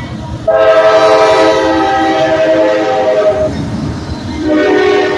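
Diesel locomotive air horn on a freight train sounding two blasts, with the train's low rumble underneath: a long chord starting sharply about half a second in and lasting about three seconds, then a second blast starting near the end.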